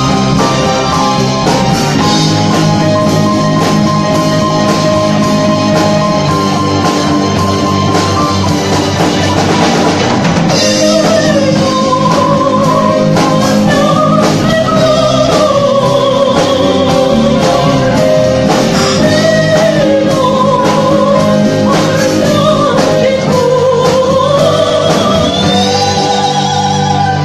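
Live rock band playing loud and steady: electric guitar and drum kit. A singing voice carries a wavering melody line from about ten seconds in.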